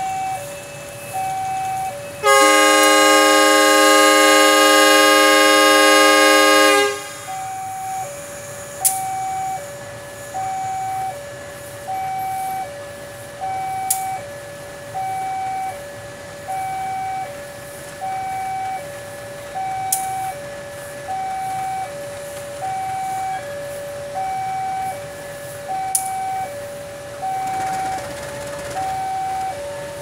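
A CC201 diesel locomotive's horn sounding one long blast of about four and a half seconds, a truck-horn-like tone resembling a BB303 locomotive's horn, given as the long Semboyan 35 signal as the train starts to move. Throughout, an electronic alarm alternates steadily between two tones, and a few sharp clicks sound several seconds apart.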